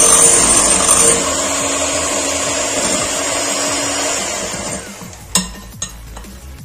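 Electric hand mixer running, its twin beaters churning a thin egg-and-sugar sponge batter in a glass bowl. The motor drops a step about a second in and winds down near five seconds, followed by two sharp knocks.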